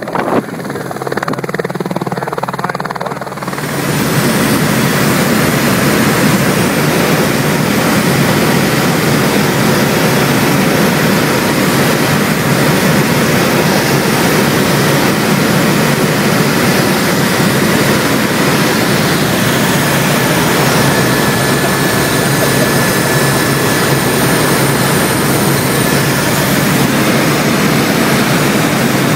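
Helicopter engine and rotor noise heard inside the cabin: a loud, steady rush. It is duller and a little quieter for the first few seconds, then fills out about four seconds in and holds steady.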